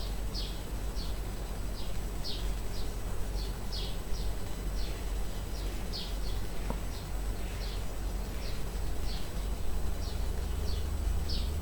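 Small animal chirping repeatedly in the background: short, high, slightly falling chirps, about two a second, over a low steady hum.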